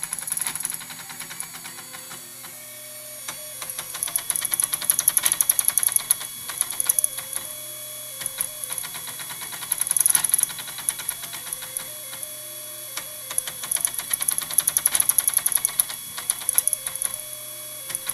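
Homebuilt RepRap 3D printer printing: stepper-driven axes clanking and clicking in rapid, irregular bursts, with short whining tones that jump from pitch to pitch as the axes move. The clanking comes from the dot-matrix-printer carriage axes, whose motors step coarsely at 0.4 mm per step because micro-stepping does not work with them; the smoother, musical tones are the HP scanner carriage's X-axis motor.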